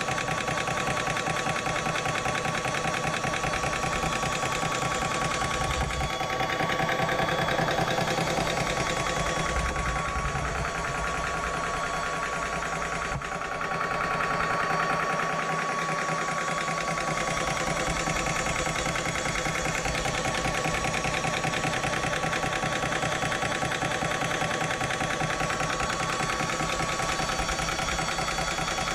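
Hatsan portable high-pressure air compressor running steadily with a fast, even pulsing, filling a PCP air rifle.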